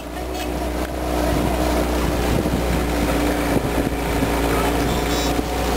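Motorboat's outboard motor running steadily underway, with wind buffeting the microphone; it grows louder over the first second.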